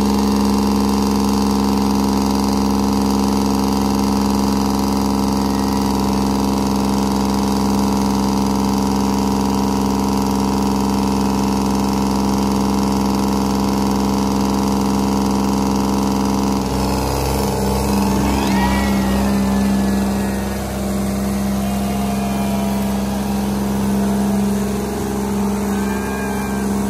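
Diesel tractor engines of a John Deere 5310 and a Sonalika 750 held at full throttle under heavy load, chained together in a tug-of-war pull: a loud, steady drone. About seventeen seconds in, the sound changes and the engine note begins to waver.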